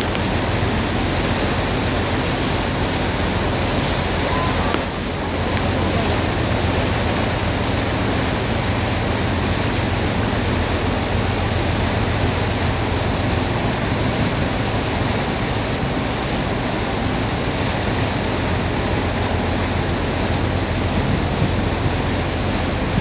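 A passenger boat under way: its engine runs steadily with a low, fast pulse beneath a constant rush of water and wind. The rush dips briefly about five seconds in.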